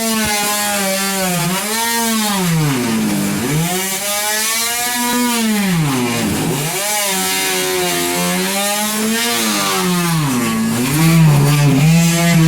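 A motor running loudly, its pitch rising and falling in smooth swells about every two seconds.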